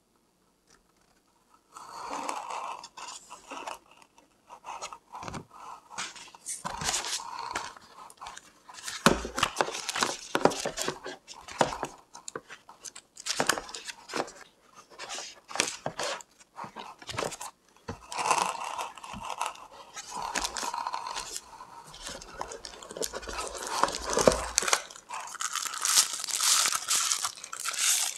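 Paper packaging being handled: printed manuals and tissue paper rustling and crinkling in irregular crisp strokes, with some sharper crackles. It starts about two seconds in.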